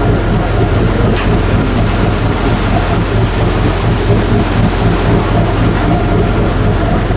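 A boat's engine running steadily under way, a low constant hum, with wind on the microphone.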